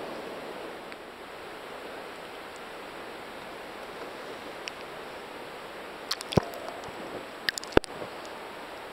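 Ocean water rushing and washing around a camera held at the surface in the surf, a steady hiss. Several sharp clicks come about six and seven and a half seconds in.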